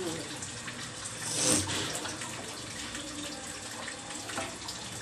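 Steady hissing, water-like noise of cooking on a gas stove, with a brief swell about one and a half seconds in and a few light clicks as a wooden spoon works in the pot of cooked dal.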